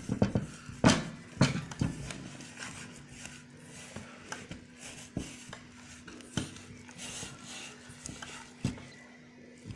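A hand mixing gram flour and water into a thick batter paste in a steel bowl: irregular knocks and clinks against the metal bowl with soft scraping, sharpest in the first two seconds, over a faint steady hum.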